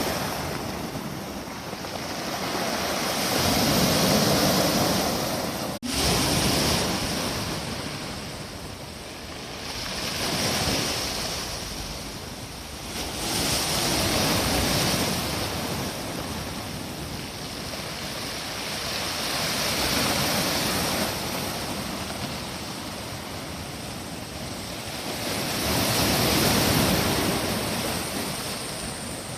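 Waves breaking on the Sea of Japan shore, the surf swelling and fading every few seconds.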